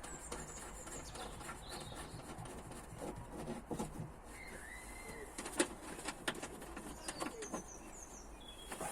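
Birds chirping outdoors in short whistled calls, over scattered light clicks and knocks of plastic trim being handled and refitted, the sharpest knock a little past halfway.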